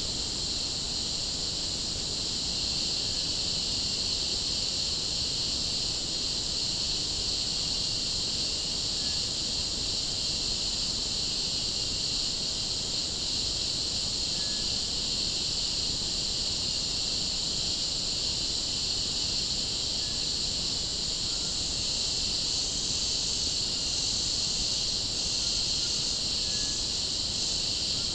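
Steady, high-pitched drone of a rainforest insect chorus, with a few faint, brief bird notes scattered through it.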